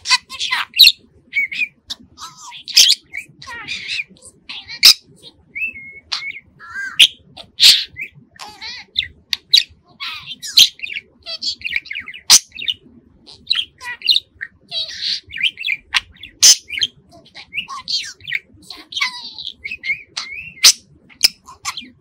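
Male blue budgerigar warbling: a fast, continuous chatter of chirps, short whistles and sharp clicks.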